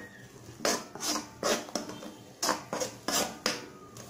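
A spoon scraping and stirring thick tomato-onion masala around an aluminium kadai: a series of short rasping scrapes, about two a second.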